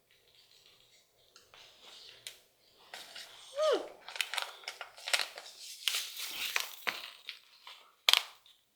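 Crinkling plastic and the dry rustle and clicks of Powerball crystals being poured and packed into a plastic ball mold, with a brief falling squeak about a third of the way in and a sharp plastic click near the end.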